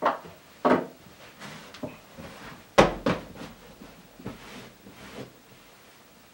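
Objects being handled and set down on a coffee table and sofa: a series of knocks and clunks with rustling, the loudest about three seconds in.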